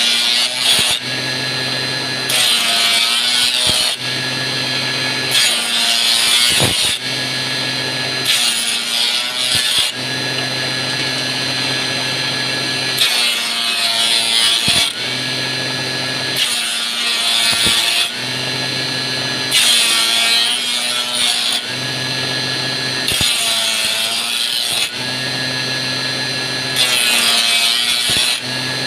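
Homemade electric wood-turning machine running with a steady hum, its cutter rasping loudly each time a thin wooden stick is pushed through to round it into a flag handle, about nine passes, one every three seconds or so.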